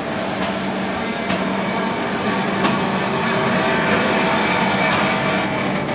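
Passenger train running: a steady rumble and hiss with a low hum and a few faint clicks, slightly louder in the middle.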